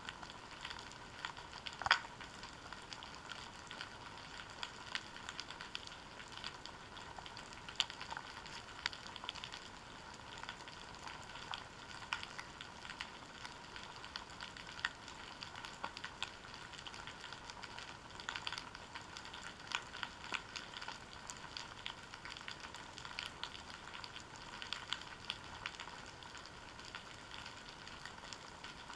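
Underwater seabed ambience heard through a GoPro Hero 3's waterproof housing: a dense, continuous crackle of small clicks. A few sharper clicks stand out, one about two seconds in.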